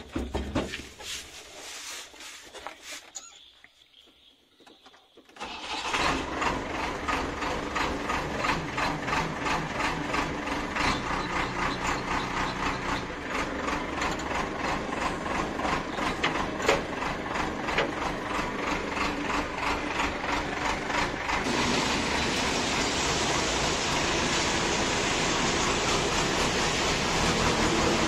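JCB 3DX backhoe loader's diesel engine starting: after a few short sounds and a quiet gap it catches suddenly about five seconds in and runs with a fast, even knock. From about twenty-one seconds the running turns steadier with a brighter hiss on top.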